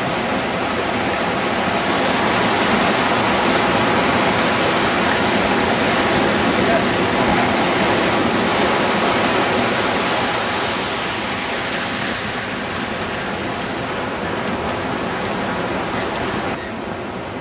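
Ocean surf breaking and washing up a sandy beach: a steady rush of noise that softens a little near the end.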